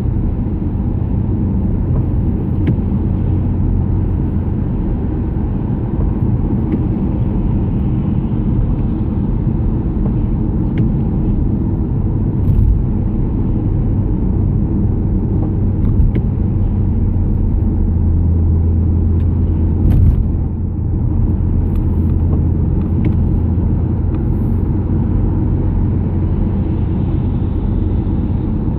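Steady low rumble of a car's engine and tyres on a wet road, heard from inside the moving car's cabin, with a few brief knocks.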